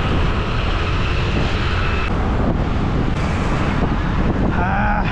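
Steady wind rush and low rumble on the microphone of a camera riding on a mountain bike going down a dirt trail. A voice calls out briefly near the end.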